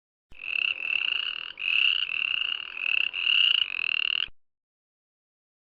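Frog calling: a run of high, trilled calls, each about half a second long, lasting about four seconds.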